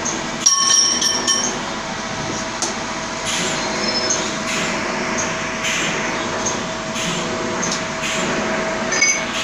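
Steady machine-shop noise from running machinery, with a continuous hum and scattered clicks. About half a second in comes a brief cluster of metallic clinks and ringing.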